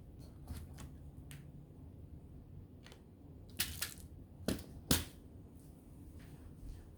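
Small items being rummaged through by hand, giving scattered light clicks and then a louder cluster of about four sharp clicks and rattles a few seconds in. This is the sound of someone searching among jewelry supplies for small crimp covers.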